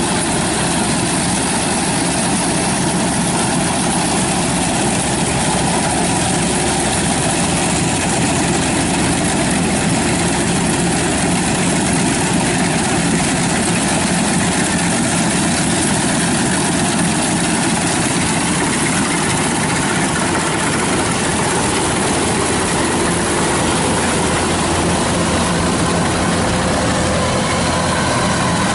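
Kubota 93 combine harvester running steadily under load while cutting rice in a flooded paddy, its diesel engine and threshing machinery giving a constant, even drone with a low hum.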